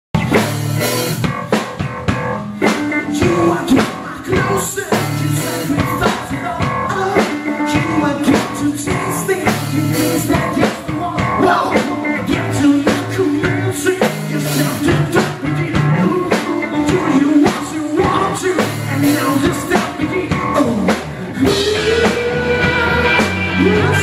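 Rock band playing live: a man singing into a microphone over electric bass, electric guitar and a drum kit.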